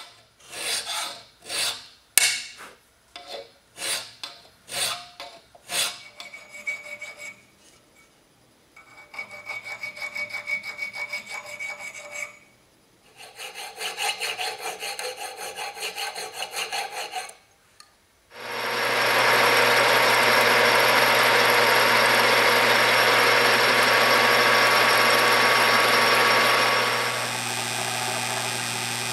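Hand file rasping on a small steel bar clamped in a vise: about ten strokes at roughly two a second, then quicker, lighter strokes in two runs. About 18 seconds in, a drill press motor starts and runs steadily, growing a little quieter near the end.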